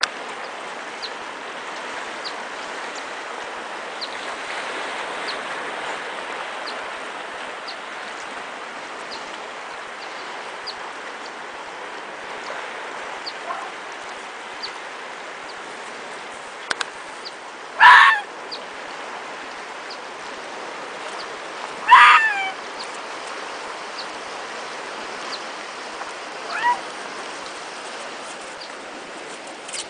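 Arctic foxes giving short, loud squealing yelps, twice about four seconds apart, with a fainter one a few seconds later, over a steady rushing background.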